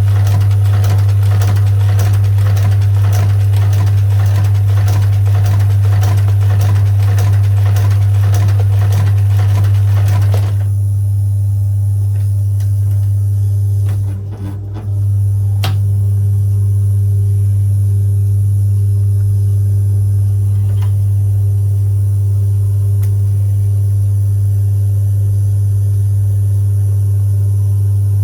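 Shoe-repair outsole stitching machine sewing a leather sole to the welt: a fast, even clatter of stitches over a loud steady motor hum. The stitching stops about ten seconds in, leaving the motor humming with a few single clicks.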